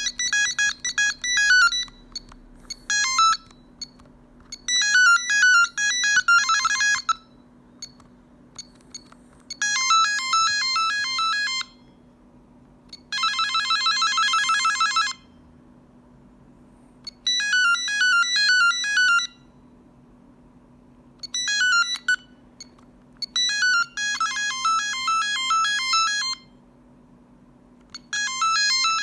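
Telecom Italia Tech New Master phone playing its built-in electronic ringtones one after another: short beeping melodies of one to two seconds each, separated by brief pauses. One of them, about halfway through, is a fast buzzing trill.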